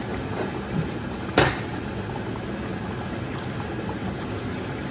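Water poured from a glass jug into a large aluminium pot of curry cooking on high heat, over a steady hiss from the pot. A single sharp knock about a second and a half in, from the metal ladle against the pot.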